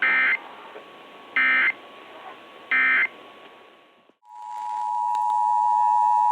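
Three short bursts of Emergency Alert System end-of-message data, the digital squawk that closes an alert, about 1.4 seconds apart over radio hiss. About four seconds in the hiss drops out and a steady two-tone EAS attention signal swells up and holds.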